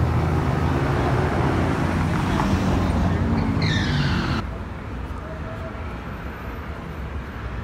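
City street traffic: cars driving past close by, with a steady low engine rumble. A brief high squeal falls in pitch about three and a half seconds in. A little past four seconds the sound drops abruptly to a quieter, steady background.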